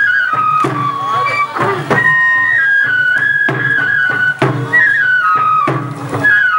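Bon odori dance music: a high flute melody moving in held, stepped notes over a beat of sharp strikes about once a second, with a singing voice underneath.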